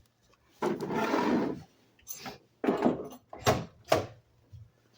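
Lockable truck-bed tool box lid being worked by hand: a scraping rub lasting about a second, then four sharp knocks as it is rocked against its hinge bracket, which has been tightened to take out the play.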